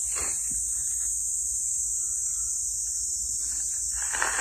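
A steady high-pitched hiss over a low hum, with two brief noises, one at the start and one about four seconds in.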